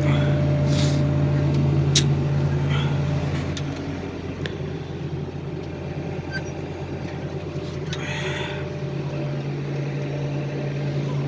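Backhoe loader's diesel engine running steadily, easing off about four seconds in, with a few sharp metallic clanks.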